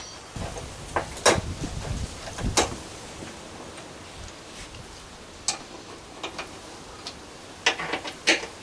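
Handling noise while fitting a rear grab handle on a Vespa scooter: a low rumble in the first couple of seconds, and scattered sharp clicks and knocks of a screwdriver and metal bracket. Two louder clicks come near the end, as the screwdriver is set at the mounting screw.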